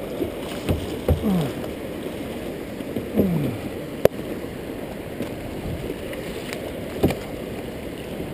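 Fast, shallow river current rushing and splashing around a kayak's hull, with two sharp knocks about four and seven seconds in.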